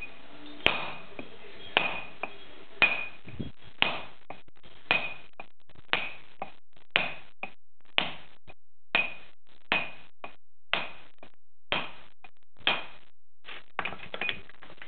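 Hand-dressing stone: a hammer striking a steel chisel held against a stone slab, about one blow a second, each blow with a short metallic ring. Lighter taps fall between the blows, with a quick flurry of light taps near the end.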